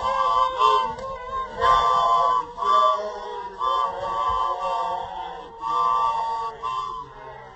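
A group of women singing a Sesotho initiation song unaccompanied, in short repeated phrases with brief breaks between them.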